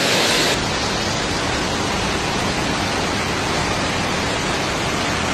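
Floodwater rushing through a street as a steady, loud hiss. About half a second in the sound changes abruptly, becoming a little quieter and duller.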